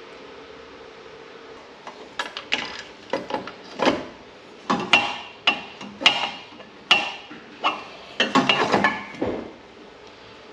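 Metal tools and fittings clinking and knocking against the steel exhaust manifold as it is refitted to the engine: about a dozen sharp, irregular metallic knocks, some ringing, starting about two seconds in and stopping shortly before the end, over a steady faint hiss.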